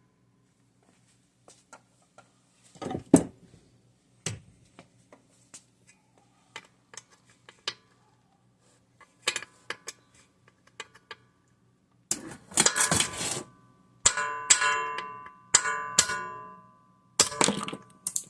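Ball peen hammer striking a punch to drive the governor shaft out of a 196cc single-cylinder engine: small clicks and knocks, one sharp strike about three seconds in, then a run of heavier blows in the last six seconds, several of them ringing like struck metal.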